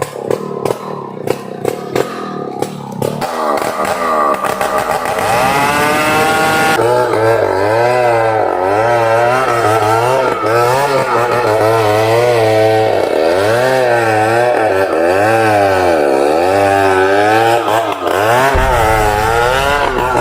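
Chainsaw cutting into a merbau (ironwood) trunk, the engine note rising and falling again and again as the saw bogs in the hardwood and picks up. The first three seconds are quieter, with clattering clicks, before the saw comes up to full cutting speed.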